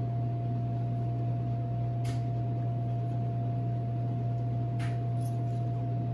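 Steady low machine hum of kitchen equipment with a thin steady tone above it. Two faint light clicks come about two and five seconds in.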